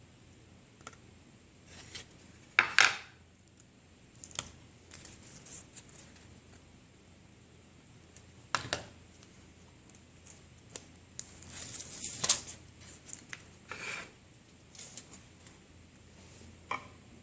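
Metal foil tape and a 3D-printed plastic part being handled: scattered clicks and crinkles. The loudest is a sharp crackle about two and a half seconds in, and there is a longer rustle around twelve seconds.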